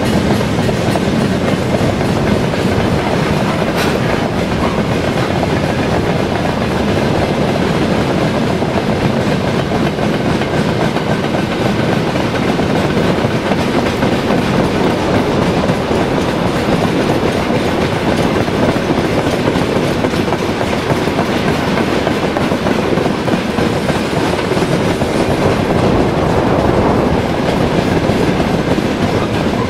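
Freight train wagons rolling past at speed: the steady, even noise of many steel wheels running on the rails.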